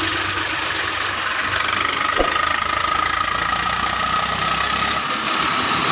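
Tractor diesel engine running steadily as it hauls a trolley loaded with soil through mud.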